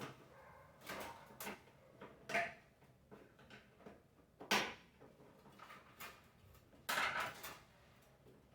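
Hard parts knocking and clattering as a vacuum cleaner is worked on by hand: about half a dozen separate knocks and rattles, the loudest about halfway through.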